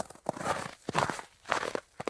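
Footsteps in winter boots crunching on dry, cold snow, about three steps at a steady walking pace.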